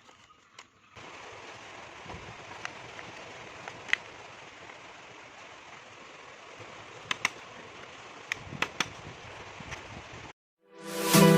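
Food frying in hot oil: a steady sizzle with scattered sharp pops. It cuts off suddenly near the end, and music starts.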